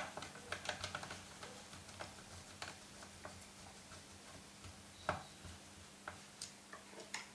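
Light, irregular clicks and taps of a small screwdriver and screws against a laptop's hard drive bay and plastic case as the drive's screws are put back in. One sharper click comes about five seconds in.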